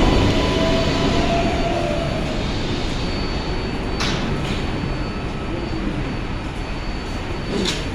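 New York City subway train coming to a stop at the platform, its running rumble fading as it slows, with two short hisses, about four seconds in and near the end.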